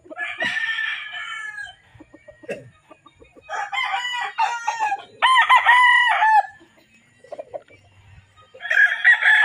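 Gamecocks crowing in their pens: about four crows in turn, a couple of seconds apart.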